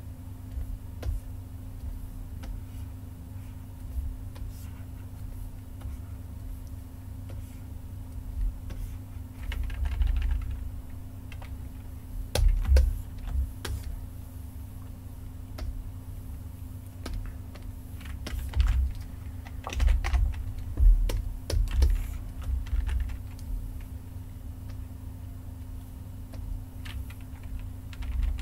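Computer keyboard keys and mouse buttons clicking in irregular clusters, busiest about ten seconds in and again around twenty seconds in, over a steady low hum.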